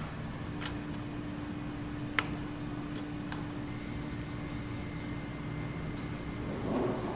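A steady low machine hum, like a ventilation fan, with four sharp light clicks in the first three and a half seconds and a short muffled sound near the end.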